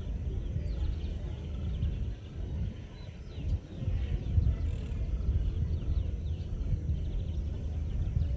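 Evening riverside ambience: many birds chirping in short falling notes, over a continuous low rumble.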